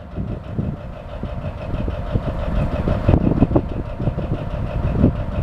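John Deere 830's two-cylinder diesel engine running with a steady, even beat, slowly getting louder.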